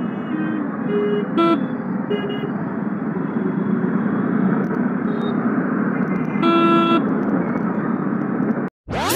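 Dense city traffic heard from a moving motorcycle, with vehicle horns tooting: a few short toots about a second in, and a longer horn blast around six and a half seconds. Near the end the sound cuts out briefly and a rising swept music effect begins.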